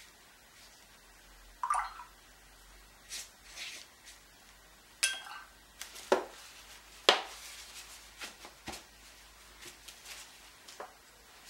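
A watercolour paintbrush knocking and clinking against a water container, with small drips of water. There are a handful of separate taps, some with a short ring, and the sharpest come about six and seven seconds in.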